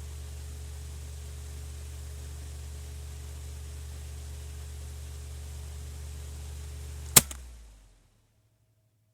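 Electric fan running with a steady low hum and airy hiss, then switched off with a sharp click about 7 seconds in; the motor winds down over under a second and falls silent.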